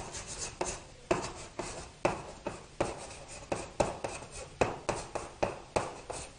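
Writing by hand: a run of short scratching strokes, about two a second, each starting sharply and trailing off.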